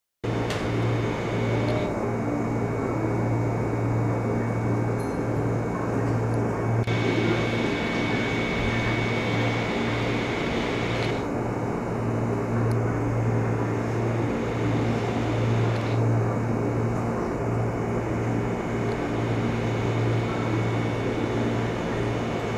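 Steady low mechanical hum, with a faint high whine through about the first half.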